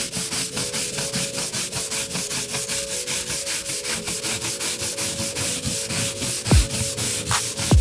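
Stiff plastic-bristle scrub brush scrubbing rapidly back and forth over the wet bare sheet-metal floor pan of a Toyota Land Cruiser 80 Series, about five strokes a second.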